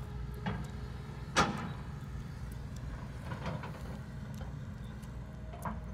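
Hitachi hydraulic excavator's diesel engine running steadily, with metallic clanks and knocks from its steel tracks and bucket as it works loose dirt; the sharpest clank comes about a second and a half in.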